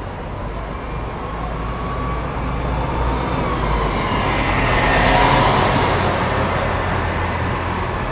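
Diesel engine of a Nova Bus RTS transit bus running as the bus drives past close by. It grows louder to a peak about five seconds in, then fades as the bus moves away.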